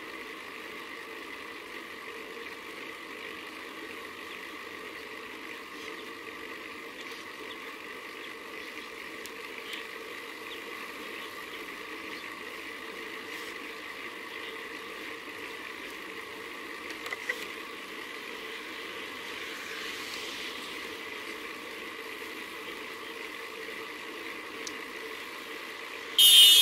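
Steady wind and road noise from a bicycle riding along a road, picked up by a bike-mounted camera. Near the very end a sudden, much louder high-pitched sound cuts in.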